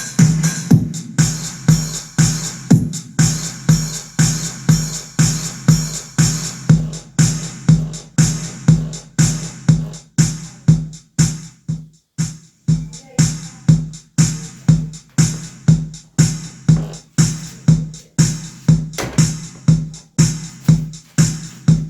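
Music with a steady drum-machine beat, about two beats a second.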